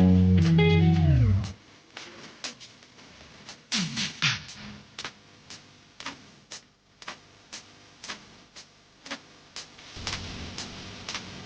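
Guitar-backed background music that slides down in pitch and cuts off about a second and a half in. It is followed by scattered faint clicks and taps at irregular intervals.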